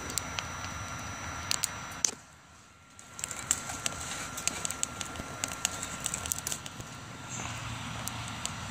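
Wood fire crackling and popping in a BioLite CampStove, over the steady whir of the stove's built-in fan. The sound drops away for about a second around two seconds in.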